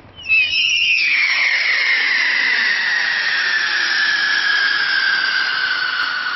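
A smoke UFO firework whistling as it climbs: a shrill, hissing whistle starts suddenly and keeps going, its pitch slowly falling.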